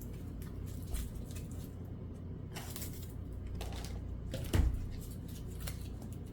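Light rustling and small clicks of foam craft pieces and sticks being handled and pressed into place, with one duller thump about two thirds of the way through.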